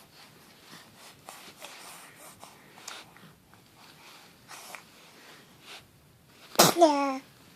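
A few faint sniffs and snuffles, then about six and a half seconds in a single loud sneeze: a sharp burst followed by a short cry that falls in pitch.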